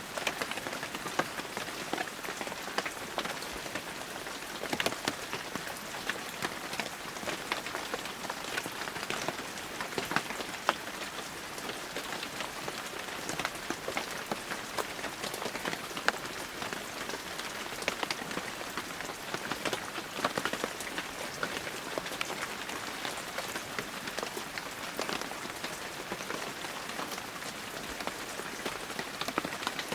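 Heavy rain falling steadily, a dense hiss of rainfall with many individual drops pattering close by.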